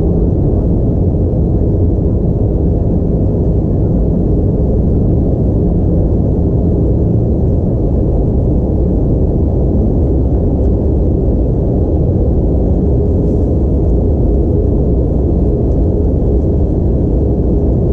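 Steady low cabin drone of an Airbus A320 in descent, airflow and engine noise heard inside the cabin, with a faint steady hum running through it.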